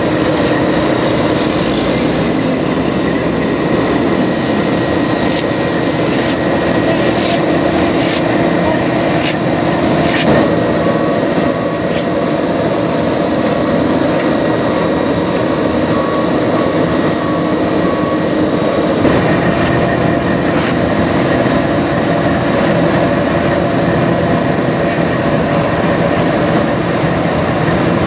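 Asphalt paving machinery, led by a Vögele Super 2000-3i paver, running steadily at work with a constant mechanical hum. A faint repeating beep sounds for several seconds midway through.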